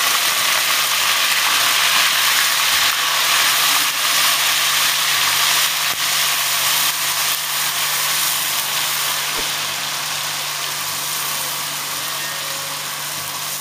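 Grated onion, wet with its own juice, sizzling loudly in hot oil with curry leaves in an aluminium karahi. The sizzle is steady and slowly eases off as the water boils away.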